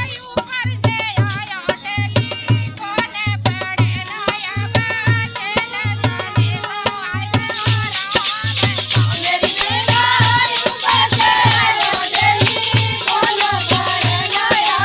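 A woman singing a Hindu devotional folk song to a steady hand-played dholak beat. About halfway through, a shaken rattling percussion joins in and the singing grows fuller.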